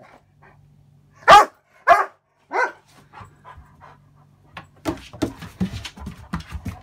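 Irish Setter barking three times in quick succession, then a few softer, shorter calls. Near the end comes a rapid jumble of scuffling and breathing noises as the dog clambers off the bed.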